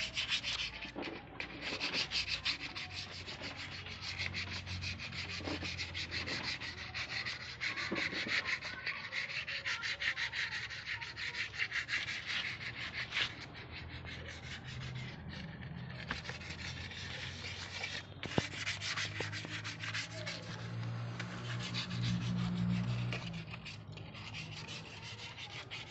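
Hand rubbing and sanding the hardened surface of a cement sculpture, a continuous gritty scraping made of rapid short strokes.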